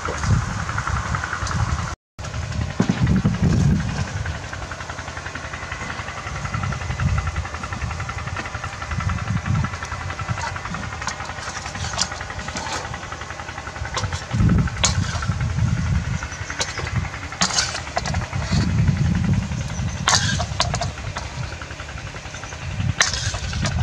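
A metal spatula scrapes and clinks against a steel wok as stir-fried duck and vegetables are stirred and scooped onto a metal tray, with sharp clinks every couple of seconds in the second half. Underneath runs a low, uneven rumble, which is the loudest sound.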